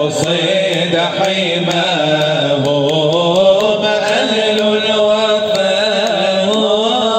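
A man's voice chanting an Arabic nasheed (Islamic devotional song), drawing out long, ornamented, wavering notes with no break for words.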